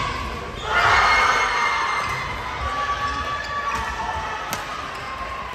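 Voices shouting and cheering in a large sports hall, starting about a second in and fading over the next few seconds, with a sharp click near the end.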